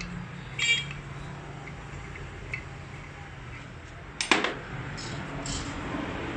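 Small steel parts of a Toyota 5L diesel injection pump clinking as they are worked loose and handled: a short ringing clink about a second in and a sharper, louder metal clack about four seconds in, with faint ticks between.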